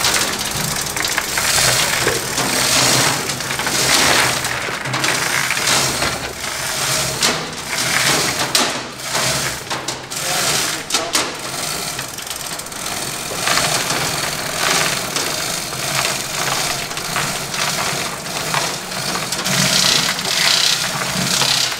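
Manual chain hoists being hand-pulled, the steel chains rattling and clinking through the blocks as they lift a heavy boat fuel tank, over a steady low hum.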